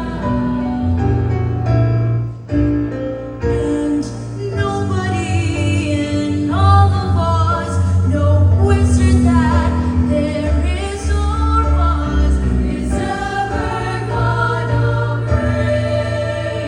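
Children's choir singing a sustained, slow-moving choral piece, held notes shifting in pitch over steady low notes.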